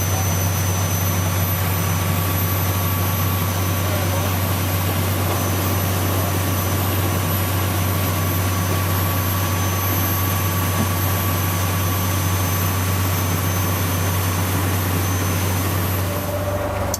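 Diesel engine of a small sea-angling boat running steadily under way: a strong, even low hum with a dense rushing noise over it. The sound shifts abruptly near the end.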